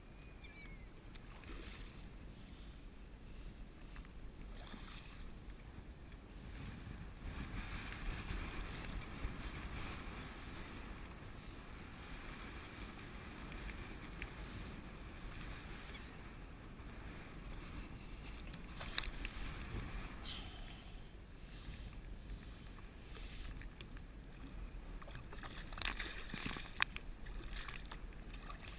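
Wind buffeting the microphone and choppy water lapping against a plastic kayak hull, with a few short sharp knocks about two-thirds of the way through and near the end.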